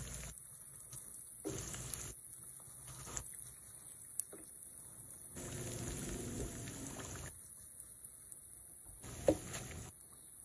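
Chicken pieces frying in a pan of hot oil, a steady crackling sizzle, with a few short clinks of a metal slotted spatula against the pan, the sharpest near the end.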